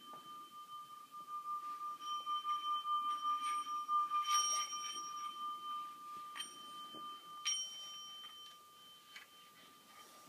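Small singing bowl rubbed around its rim with a stick, singing one steady high tone that pulses in loudness and swells in the middle. The stick clicks against the rim a few times, sharpest about four and a half and seven and a half seconds in.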